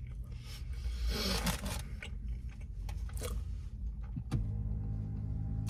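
A person chewing a mouthful of McDonald's double cheeseburger with the mouth closed, soft wet squishing and smacking close to the microphone, with a low steady hum during the last second or so.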